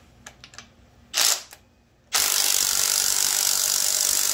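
A handheld power tool on a cylinder-head bolt of a GM 5.3 LS V8. It gives a short burst about a second in, then runs steadily from about two seconds in without breaking the bolt loose.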